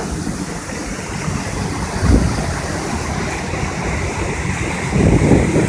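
Rushing water of a waterfall on a stream, a steady noisy wash, with wind buffeting the microphone in low gusts about two seconds in and again near the end.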